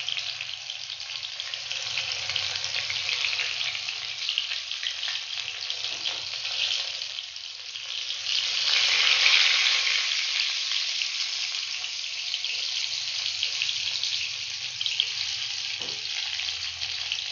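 Moong dal pakoras deep-frying in hot oil in a kadhai over a medium flame: a dense, steady crackling sizzle that swells louder for a second or two about halfway through.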